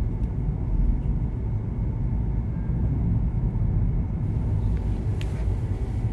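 Steady low rumble of background noise, with a few faint clicks near the end.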